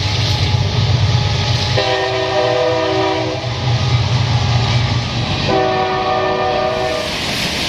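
A horn with several tones sounding together blows twice, each blast held about a second and a half, over a loud, deep engine rumble that fades about five seconds in.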